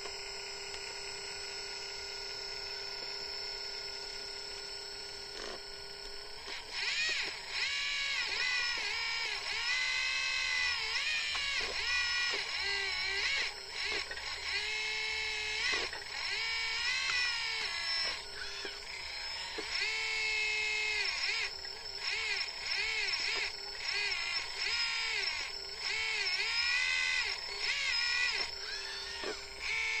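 A 1/14-scale RC hydraulic excavator's electric pump whines steadily at first. From about six seconds in, its pitch dips and recovers over and over as the boom and bucket dig under load.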